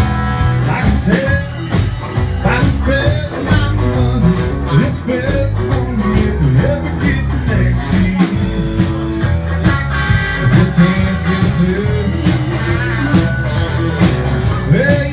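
A live band playing: strummed acoustic guitar, electric guitar, electric bass and a drum kit keeping a steady beat, with a man singing lead.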